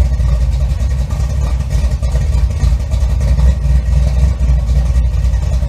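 An engine running loud and steady with a low rumble, cut off abruptly at the end.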